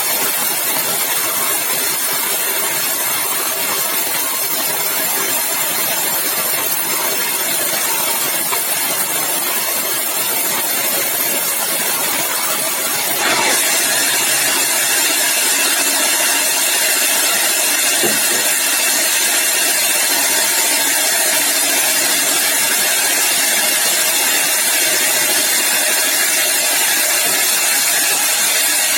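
Sawmill machinery running steadily with a dense, even noise; the sound steps up suddenly a little under halfway through.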